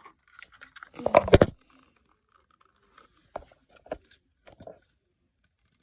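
Handling noise: small objects being picked up and set down, with a louder clatter about a second in followed by a few scattered clicks and knocks.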